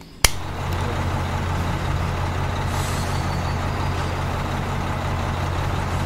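A switch clicks on, then the small electric motor of a miniature concrete mixer runs steadily, turning its drum with wet cement mix inside, a steady hum with a whirring rattle over it.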